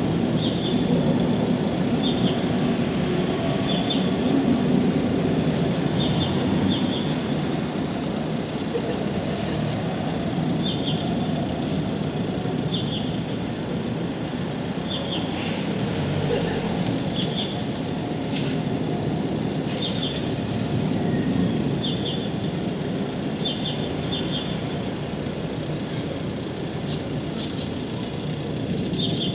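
Small birds chirping: short, high chirps repeated every second or two, over a steady low rumble of background noise.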